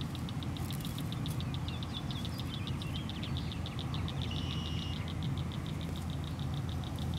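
A rapid, even ticking trill from a calling animal outdoors, about eight to ten ticks a second and unbroken, with a couple of short high chirps about four seconds in, over a steady low rumble.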